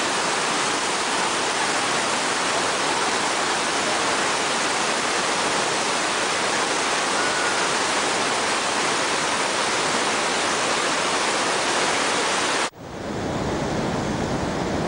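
Water rushing out of a dam's opened spillway gates, a steady loud rushing. About 13 seconds in it cuts off suddenly and a deeper, lower rushing of released water follows.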